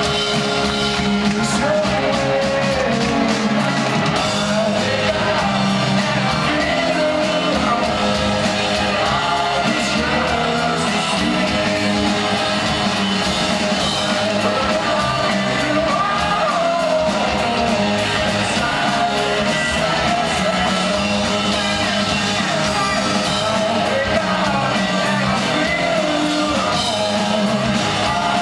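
Live rock band playing with singing, electric guitars, keyboard and drums, heard in a large concert hall.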